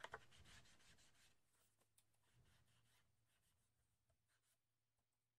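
Faint rubbing of an ink-blending applicator and paper, with a few small ticks, as paper edges are inked. It fades out after about a second and a half into near silence.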